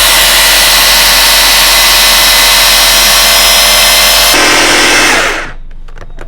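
Small electric blender running at full speed, blending herbs and peppers into seasoning, working hard enough that it is getting hot. It is switched off a little over four seconds in and winds down to a stop.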